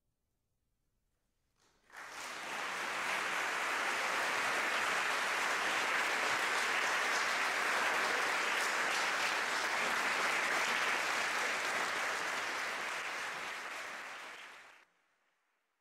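Audience applauding. It starts about two seconds in, holds steady, then fades and cuts off near the end.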